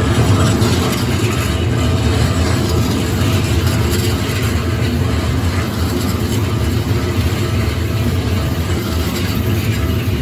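Keikyu Line train passing over a level crossing: a steady rumble of wheels on the rails that eases slightly toward the end.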